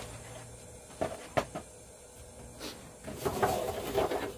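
Hard clicks and knocks from a ring light and its stand being handled: a few single knocks, then a burst of clattering about three seconds in.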